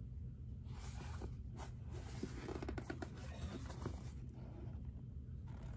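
Leather rustling and scraping with small clicks as a Dr. Martens 1460 nappa-leather boot is worked off a socked foot, from about a second in until about four seconds, with a short burst again near the end, over a steady low hum.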